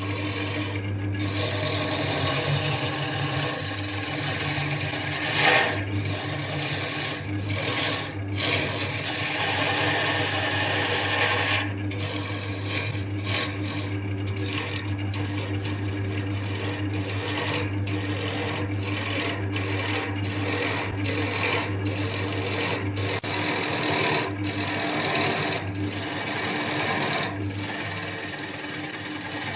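Wood lathe motor running steadily while a tool cuts the spinning wood with a continuous hiss that breaks off for a moment again and again.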